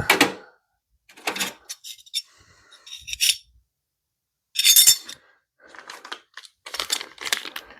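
Small metal hand tools and parts clinking and clattering as they are picked up and set down, in a series of separate clinks with some metallic ringing, the loudest about five seconds in.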